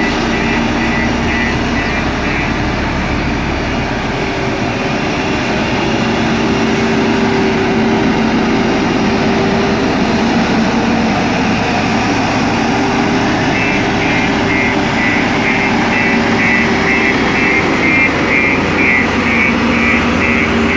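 JCB 3DX backhoe loader's diesel engine running steadily under work. A fast, high pulsing tone sounds over it near the start and again from about two-thirds through.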